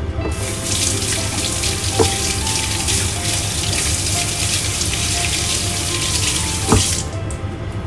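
Kitchen tap running into a sink, turned on just after the start and shut off abruptly about seven seconds in, with two sharp knocks against the sink, one about two seconds in and one just before the water stops.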